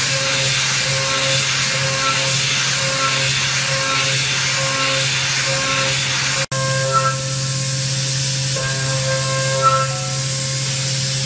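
CNC vertical milling machine cutting a metal block with an end mill under flood coolant, on a ProfitMilling high-speed trochoidal toolpath: steady spindle hum and coolant hiss, with the cutting tone rising and falling in a regular cycle a little faster than once a second. The sound drops out for an instant about six seconds in.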